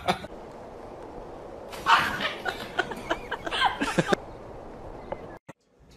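A person laughing for about two seconds, starting about two seconds in.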